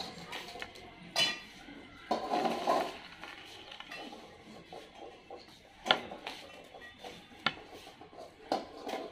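Stainless steel dog food bowls clanking and scraping as they are handled and dogs eat from them: a scraping rattle about two seconds in, and several separate sharp metallic clanks.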